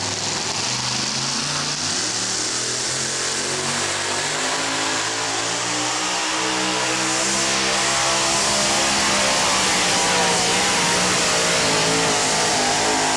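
Supercharged engine of a two-wheel-drive pulling truck running hard under load as it drags the weight-transfer sled. Its pitch holds for the first several seconds, then climbs steadily from about six seconds in.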